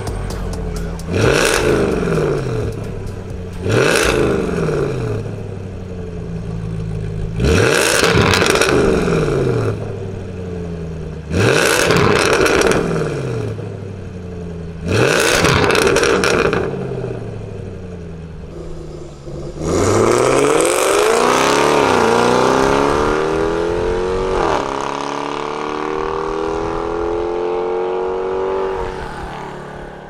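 Supercharged 5.0-litre V8 of a Land Rover Defender 90 P525 revving through a Fi valvetronic catback exhaust with quad tips, its valves shown closed at first and open later. It gives five sharp rev blips, each climbing quickly and falling back. About twenty seconds in comes one long rev that climbs, dips once and climbs again before fading out at the end.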